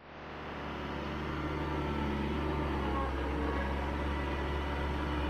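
Bobcat 853 skid steer's diesel engine running steadily. It fades in quickly at the start.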